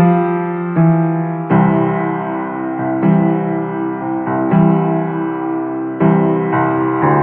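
Slow background piano music: chords struck about once a second and left to ring.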